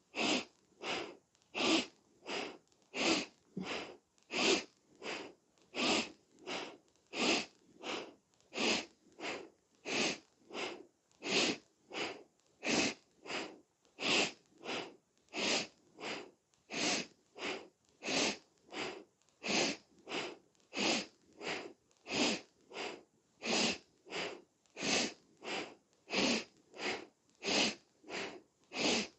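Rapid, forceful breathing through the nose, sharp inhales and exhales alternating in a fast, even rhythm of nearly two breaths a second, paced by a seated yoga spinal twist: in on the turn to the left, out on the turn to the right.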